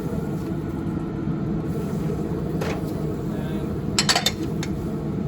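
Cuisinart Woodcreek pellet grill running with a steady low rumble, with a quick cluster of sharp clicks and clinks about four seconds in.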